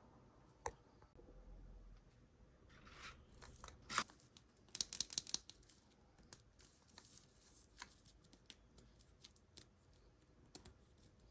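Toy packaging being handled and torn open: short crinkling and tearing sounds, densest about four to five seconds in, then scattered light clicks.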